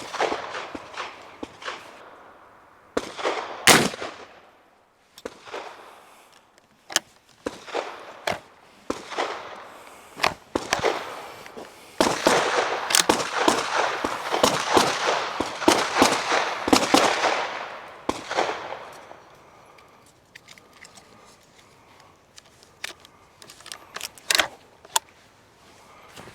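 A single black-powder rifle shot just before four seconds in, the loudest sound, with a ringing tail. Around it come many sharp clicks and knocks, and a dense stretch of clattering and crackling noise from about twelve to eighteen seconds.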